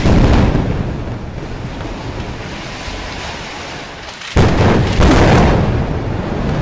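Airstrike explosions on a high-rise: a heavy blast right at the start that trails off into a long rumble, then two more sudden booms about four and a half and five seconds in, each also trailing off slowly.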